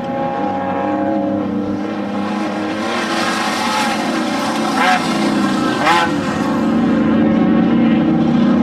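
Off-road desert race vehicle engines running steadily, with two brief revs about five and six seconds in.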